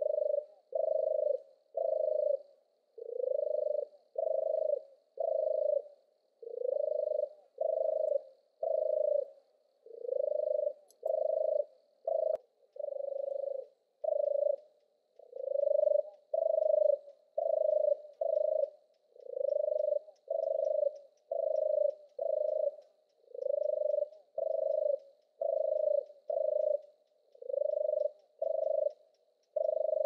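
European turtle dove's purring song: low, rolling notes repeated steadily throughout, about one and a half a second, with short gaps between them.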